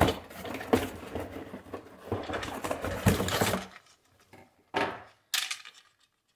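Cardboard packaging being handled and pried open: rustling and scraping with a few sharp knocks for about three and a half seconds. Then it goes quieter, with two short scrapes near the end as a wooden sword scabbard is drawn out of the box.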